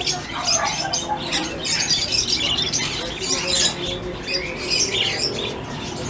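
Many small cage birds chirping and twittering at once: a dense, unbroken mix of short, high calls.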